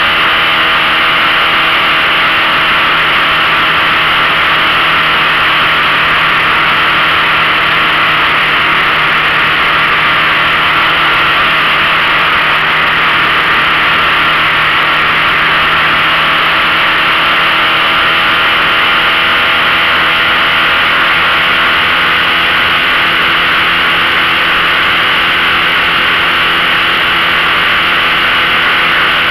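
15 hp outboard motor running steadily, its pitch holding nearly constant throughout.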